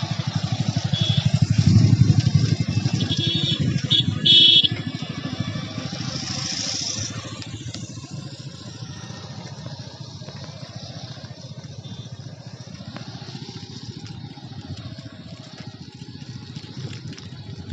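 A small engine running with a rapid, even beat, loudest about two seconds in and fading away after about seven seconds, as from a passing motor vehicle. A brief loud high-pitched sound comes about four seconds in.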